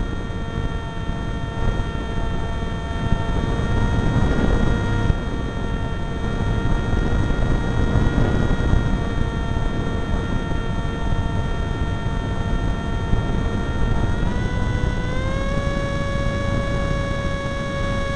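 Electric pusher motor and propeller of a Zagi v4 flying wing whining steadily in flight, heard from on board over heavy wind rush on the microphone. Near the end the motor speeds up and its whine steps up in pitch.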